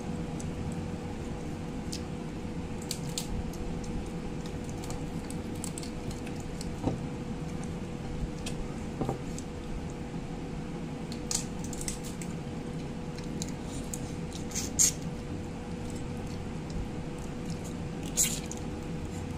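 Eating by hand: mouth and finger sounds of chewing rice, crab and coconut-cooked cassava leaves, with short scattered clicks of lips and fingers. The clicks are loudest near the end, as food is sucked from the fingers. Under it runs a steady faint hum.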